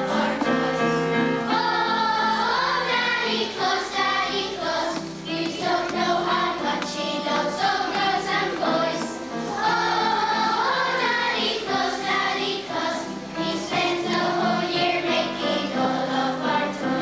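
A group of children singing a song together, with musical accompaniment.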